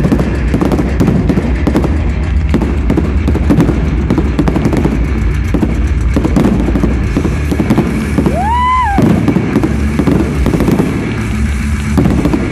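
A fireworks display going off close by: rapid, continuous crackling and popping with bangs. About eight seconds in, a whistle rises and then falls in pitch.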